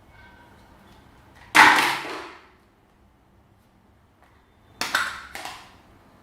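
Slime being squished by hand: a loud squelch about one and a half seconds in, then two shorter squelches close together near the end.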